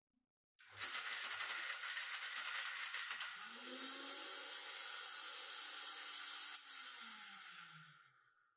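Kenstar electric mixer grinder running, grinding a paste. It starts abruptly, rattling at first, then runs steadier with a motor whine. About six and a half seconds in it is switched off and the whine falls away as the blade spins down.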